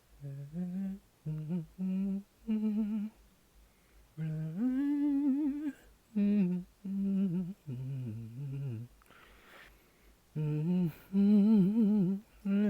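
A person humming a slow tune in short wordless notes, one longer note sliding up and held about four seconds in, with an audible breath about nine seconds in.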